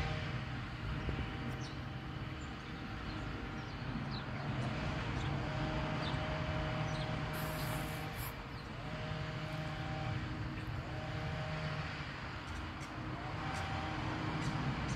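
Boeing 777's jet engines heard from the ground as the airliner climbs away after take-off: a steady, distant roar with faint tones that drift in and out every few seconds.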